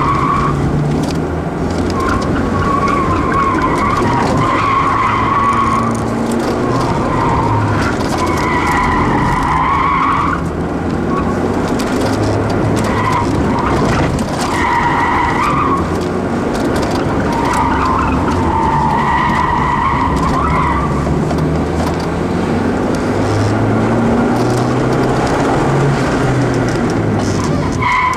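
Ford Escort driven hard through an autocross course, heard from inside the cabin: the engine running under load, changing pitch with throttle, while the tyres squeal repeatedly through the turns, each squeal lasting a second or two.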